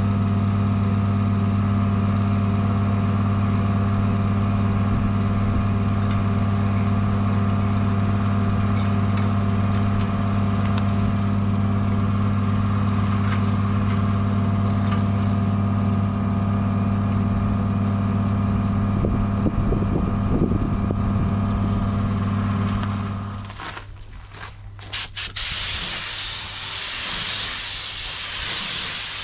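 A steady machine hum, with a low pitched drone, stops suddenly about 23 seconds in. After a few short hisses, a steady loud hiss takes over near the end.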